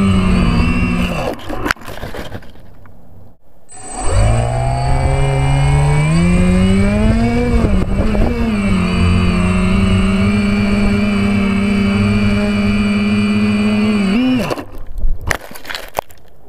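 DJI F450 quadcopter's brushless motors and propellers whining, heard from the onboard camera. The whine cuts out about two seconds in, then spins back up with a rising pitch and holds steady at flying throttle. Near the end it cuts out again, with a few knocks as the quadcopter goes into the plants.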